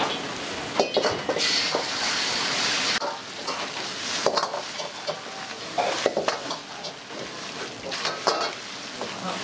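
Food sizzling in a hot wok while a metal ladle stirs, scrapes and knocks against it in short, sharp strikes. A louder burst of sizzling starts about a second and a half in and dies down about three seconds in.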